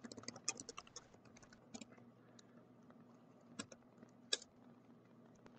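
Computer keyboard typing: a quick run of keystrokes for the first couple of seconds, then a few single key presses, the loudest about four seconds in, over a faint steady low hum.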